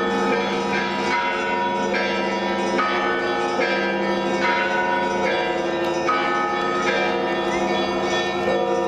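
Russian Orthodox belfry bells ringing together: smaller bells are struck in a steady pattern about once a second over the long, steady hum of a larger bell, all ringing on and overlapping.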